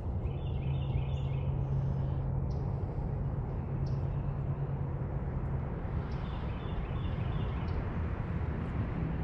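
Outdoor ambience: a steady low rumble with a faint hum, and two short runs of high bird chirps, about a second in and again near the end.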